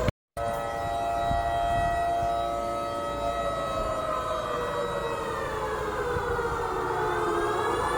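Civil-defence warning siren wailing: its pitch holds, slowly falls to a low point, then begins to rise again near the end. The sound cuts out for an instant just after the start. It is the siren that signals the nightly 10 pm lockdown curfew.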